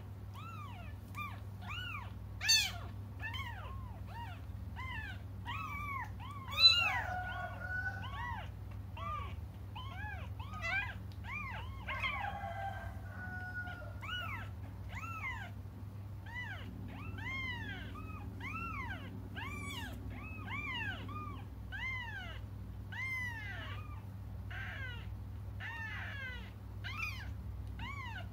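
Young kittens meowing over and over, short rising-and-falling cries about twice a second, some overlapping, with a few louder cries among them: the distress calls of kittens crying for their mother.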